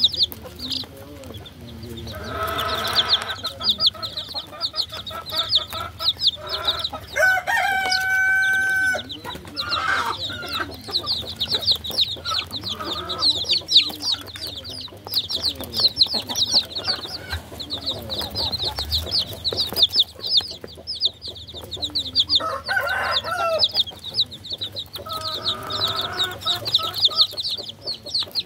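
Baby chicks peeping steadily, many rapid high chirps overlapping. A few lower, longer calls from a grown chicken come in now and then, the longest about eight seconds in.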